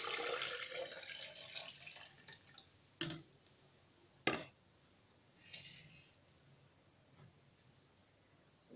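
Freshly squeezed orange juice pouring from a jug into a glass blender jar, the splashing tapering off over the first second or two. Two sharp knocks follow about three and four seconds in, then a brief hiss.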